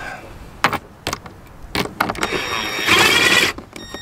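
A few sharp knocks of a socket on bolts and metal, then a power drill fitted with an 8 mm socket on an adapter runs a diffuser bolt in, with a motor whine in two bursts from about two seconds in.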